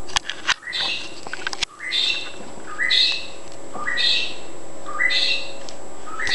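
A bird calling over and over, about once a second, each call a short rising note with a bright, harsh top. Several sharp clicks come in the first second and a half.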